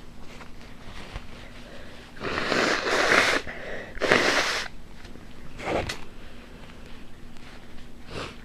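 A woman sniffling through her nose: two long, breathy sniffs or nose breaths about two and four seconds in, then a couple of fainter short ones.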